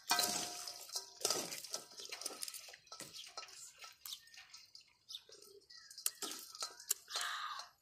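Metal spoon stirring and scooping through live baby crabs in a wet chili dressing in a stainless steel bowl: irregular clinks and scrapes of the spoon on the bowl, some leaving a brief metallic ring, mixed with wet sloshing of the sauce and shells.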